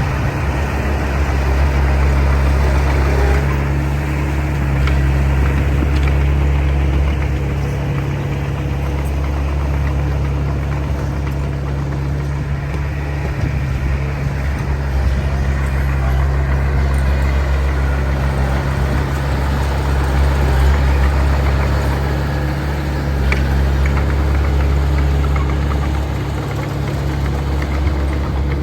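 Heavy diesel engine of earthmoving machinery running steadily with a deep low hum, its level swelling and easing several times.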